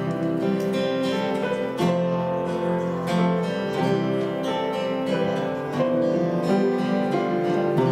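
Acoustic guitar playing, a melody of plucked and strummed notes.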